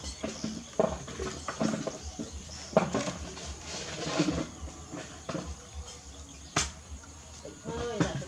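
Puppies eating from plastic bucket lids on concrete: irregular chewing and lapping with the lids clicking, knocking and scraping. There is a sharp knock about six and a half seconds in and a short pitched cry near the end.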